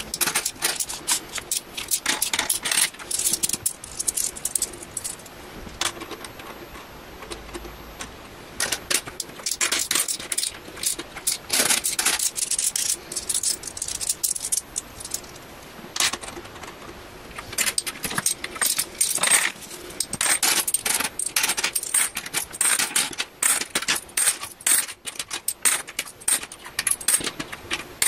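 Handfuls of British coins (£1 and 50p pieces) clinking against each other as they are picked from a pile on a desk and sorted for counting: rapid clusters of metallic clicks, with a couple of quieter stretches.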